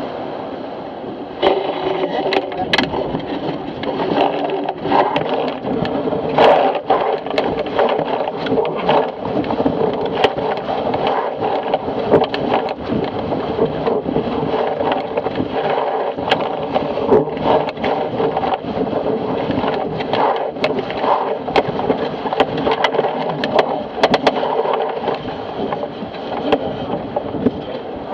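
Water rushing and splashing along the hull of a Fireball racing dinghy sailing fast through chop, with frequent sharp slaps and knocks as the hull hits the waves.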